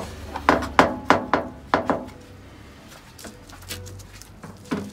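A quick run of about six sharp wooden knocks, each with a short ringing tail, in the first two seconds as hands work at a wooden counter and bamboo sushi mat, then softer faint handling as sushi rice is pressed onto the nori.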